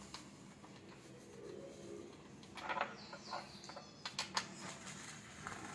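Light clicks and rustles of hands handling plastic gaming-chair parts during assembly, sharpest about halfway through and again a second later.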